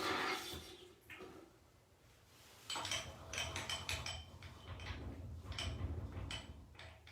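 Steel tools and parts being handled on a metal workbench: a clatter at the start, then a run of clinks and scrapes from about three seconds in, with a low rumble under them.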